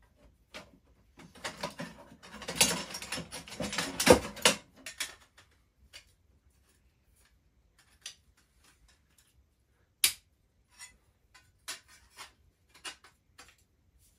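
Laser-cut steel kit parts clattering and knocking against each other and the wooden workbench as they are handled and fitted. The loudest knock comes about four seconds in, followed by a few scattered light clicks and one sharp click about ten seconds in.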